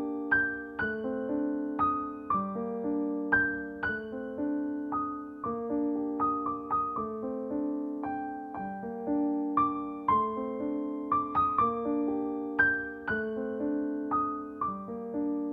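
Piano music: single struck notes over held chords, a few notes a second, each note fading after it is struck.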